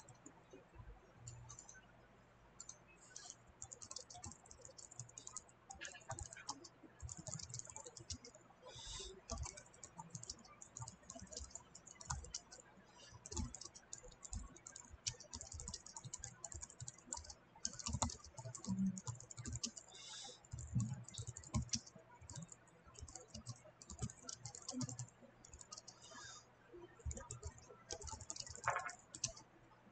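Computer keyboard being typed on: a long run of faint, irregular keystroke clicks.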